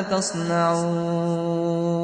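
Male voice chanting Quran recitation, holding one long, steady note on a prolonged vowel.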